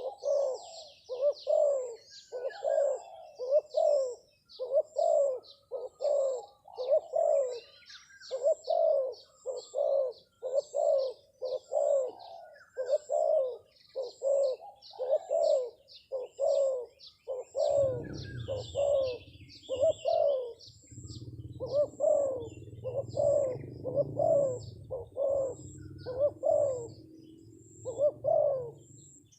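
Spotted dove (terkukur) cooing over and over in a long, even series of low coos, with small birds chirping higher up and a faint, regular high-pitched pulse. A low rumble joins about two-thirds of the way through.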